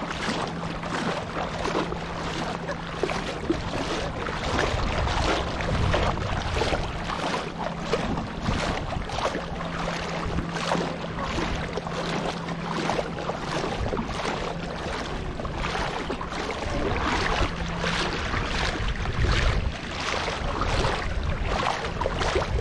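Shallow seawater lapping and sloshing around a camera held right at the surface, a continual fast, irregular splashing. A faint steady low hum runs underneath and stops near the end.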